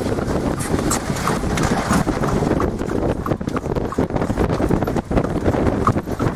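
Horse's hooves clip-clopping on a paved road as it pulls a buggy along at a steady pace, with wind rumbling on the microphone.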